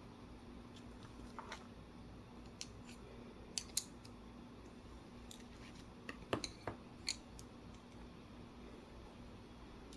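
Scattered small, sharp clicks and taps of wooden colored pencils being handled and knocked against each other and the table. The two loudest come close together a little before four seconds in, and a quick cluster follows a little after six seconds.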